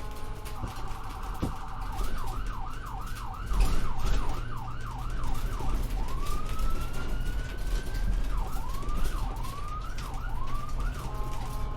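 Ambulance siren cycling through its modes while the vehicle drives: a rapid warble, then fast yelps sweeping up and down about twice a second, one long slow rising wail in the middle, more yelps, and back to the rapid warble near the end. A steady low rumble runs beneath it.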